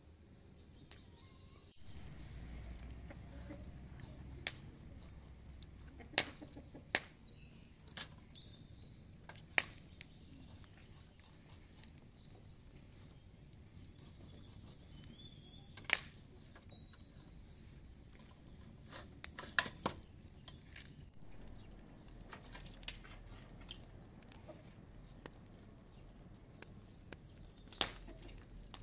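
Hands working food in a plastic bowl: scattered sharp clicks and knocks of handling, a dozen or so spread irregularly, with a few short high bird chirps.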